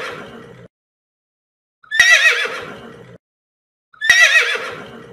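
Horse whinnying: the tail of one neigh at the start, then two more beginning about two seconds and four seconds in. Each is a wavering high call that fades over about a second, with dead silence between the calls.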